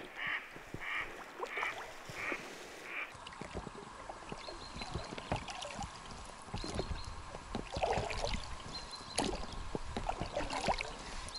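Ducks quacking, about six calls in a row. Then, about three seconds in, the knocks and splashes of oars rowing an inflatable boat.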